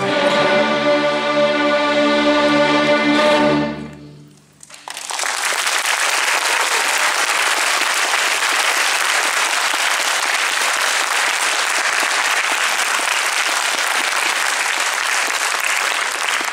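A youth orchestra holds its final chord and cuts off about four seconds in. After a short pause the audience breaks into steady applause.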